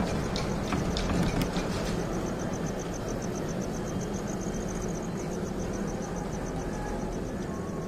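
Steady low rumble of a single-seat chairlift ride, with a fast high-pitched pulsing chirr of about six pulses a second through the middle and a few light clicks in the first second or so.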